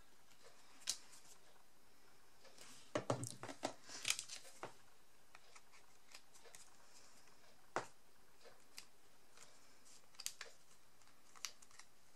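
Hands handling die-cut paper and card on a cutting mat, with a plastic glue bottle picked up and put down: light scattered clicks and paper rustles, with a brief cluster of sharper taps and rustling about three to four and a half seconds in.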